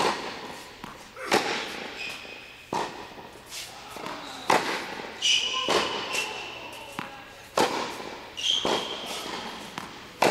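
Tennis ball struck by a racket and bouncing on a hard indoor court: a string of sharp, echoing pops roughly every second or so, with short squeaks of rubber shoe soles on the court between hits.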